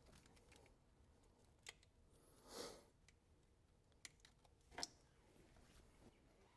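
Near silence broken by a few faint, separate clicks and a soft rustle as hands handle the fuel filter base and its fittings in a tractor's engine bay.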